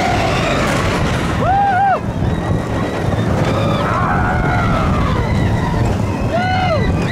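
Expedition Everest roller coaster train running fast down the track with a loud, steady rumble. Riders scream over it in rising-then-falling yells, once about a second and a half in and again near the end.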